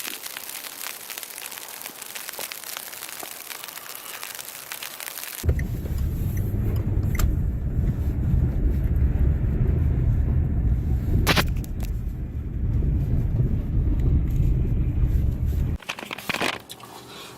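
A steady hiss for about five seconds, then a sudden change to a car's low road rumble heard from inside the cabin, which stops abruptly near the end and is followed by a few clicks.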